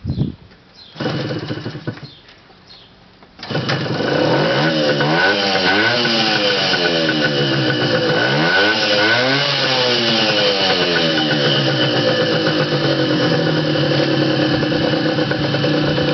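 Suzuki GT 50's small two-stroke single-cylinder engine being kick-started: two short kicks that briefly turn it over, then it catches about three and a half seconds in. It is revved up and down several times, then settles into a steady idle.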